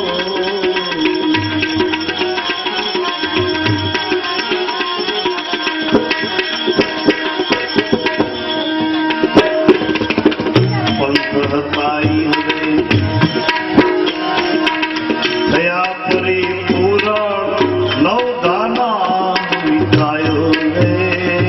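Devotional bhajan music: tabla playing a steady rhythm, its deep bass strokes coming and going, under a pitched melody with gliding notes.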